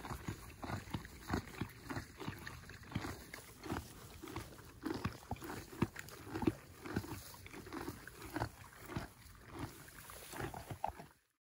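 Ponies munching hay up close: a steady run of irregular crunching bites and dry hay rustling, several a second, cutting off suddenly near the end.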